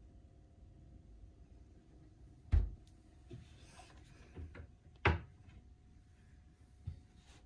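A mini fridge door pushed shut with a thud about two and a half seconds in, then a wooden cabinet door closed with a second thud about two and a half seconds later, with a few lighter knocks of handling between and after.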